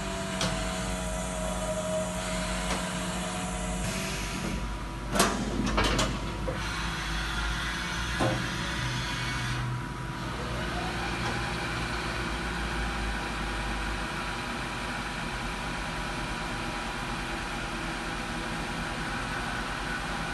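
1997 Haas VF-6 CNC vertical machining center running with a steady mechanical hum. A few sharp clunks come about five to six seconds in, with another about eight seconds in, and a rising whine begins around ten seconds.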